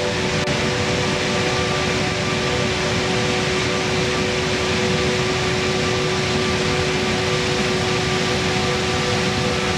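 Steady rushing of waterfalls cascading down the rock walls of a gorge, with a few steady held tones over it.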